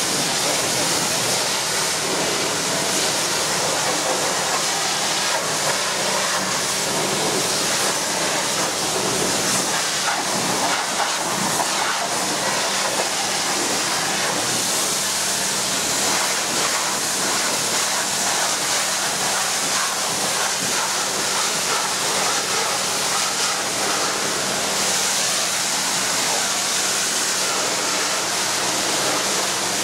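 Pressure-washer spray hissing steadily as the wand sprays the underside and wheels of a John Deere 9670 STS combine harvester, with a steady low hum underneath.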